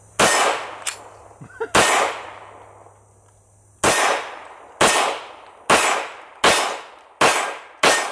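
Hi-Point .40 caliber pistol firing eight shots, each a sharp crack that trails off in echo: two slow, spaced shots first, then six at a steady pace a little under a second apart. The pistol is full of dirt and still fires, a little delayed at first.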